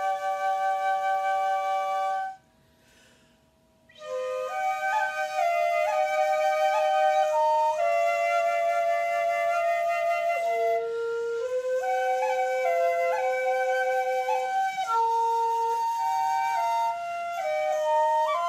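Two Hidekatsu shinobue, Japanese bamboo transverse flutes pitched in roku-hon chōshi (six-hon key), playing a melody in two-part harmony. A held chord breaks off about two seconds in, and after a pause of about a second and a half the tune resumes in stepped notes.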